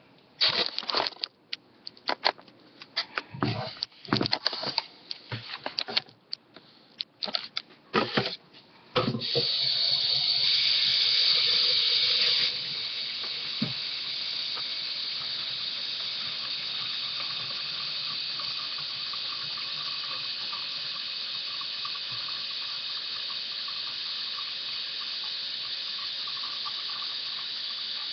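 Clattering and knocks of things being handled, then about nine seconds in a tap is turned on and water runs steadily into a container to fill it. The running water is loudest for the first few seconds, then settles to a softer, even flow.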